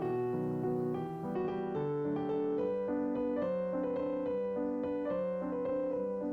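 Gentle piano background music: a melody of steady notes over a soft accompaniment.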